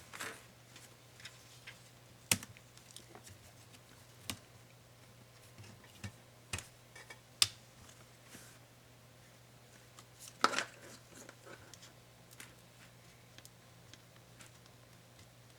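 Scattered sharp clicks and taps of small plastic and metal parts of an ASUS ROG Strix GL503VM laptop being handled during disassembly, a few loud ones spread through, over a faint steady low hum.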